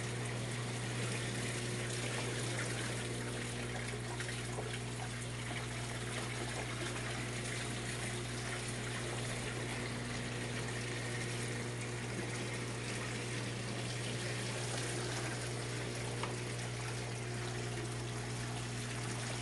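Steady running water from an aquaponic system's return pipe splashing into the fish tank, over a steady low electric hum from the circulating pump.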